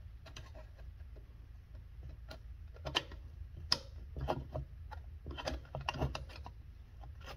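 A screwdriver turning out the large flathead stock bolt of a Remington Sportsman 48 shotgun, loosening it to free the buttstock: scattered small clicks and scrapes of the tool working the bolt.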